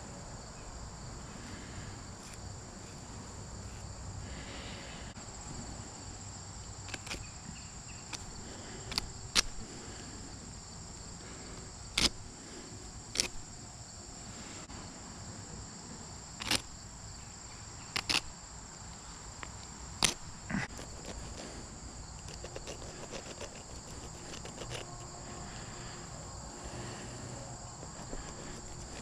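Steady high-pitched insect chorus droning throughout, with about nine sharp clicks and snaps scattered through the middle.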